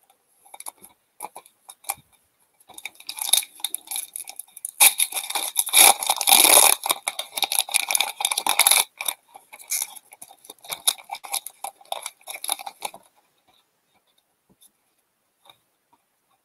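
Foil wrapper of a hockey card pack crinkling and tearing as it is opened by hand. It is loudest from about five to nine seconds in and stops about thirteen seconds in.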